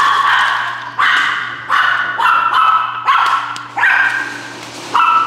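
Small dog barking repeatedly in high-pitched yips, about one bark a second.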